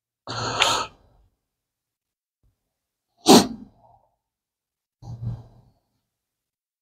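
Bible pages being turned close to a lectern microphone: three short rustling swishes, the first just after the start, the loudest about three seconds in, and a softer one about five seconds in.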